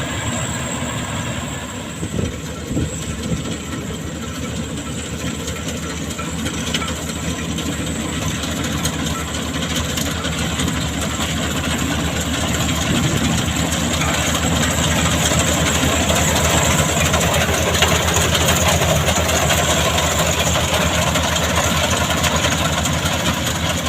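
An old engine running steadily with a fast, even firing beat. It gets somewhat louder from about halfway through.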